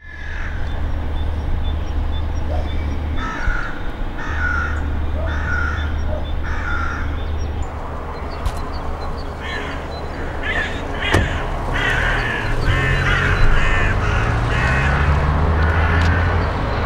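Crows cawing: a run of four evenly spaced caws, then a quicker, more excited series of calls, over a steady low rumble.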